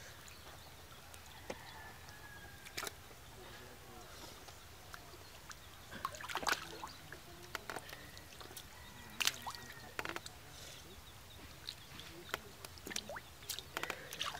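Shallow muddy water splashing and sloshing in short, irregular bursts as rubber boots wade through it and fish thrash. The sharpest splashes come about six and nine seconds in, with more near the end.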